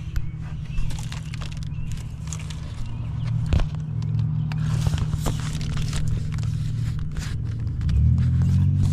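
An engine running with a steady low drone that gets louder and shifts in pitch near the end, under scattered clicks and scrapes of hands handling the wiring at a fuel injector connector.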